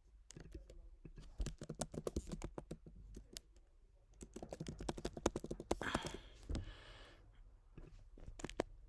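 Quick, irregular run of small clicks and taps, several a second, with a short hissy burst about six seconds in.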